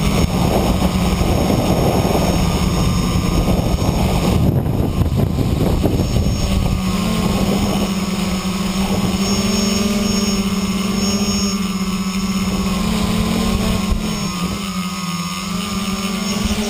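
Motors and propellers of an FPV tricopter in flight, heard close up with wind rush: a steady droning whir whose pitch steps up about a third of the way in and dips briefly near the end as the throttle changes.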